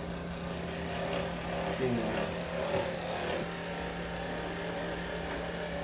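A steady low hum from a small motor, with faint voices in the background.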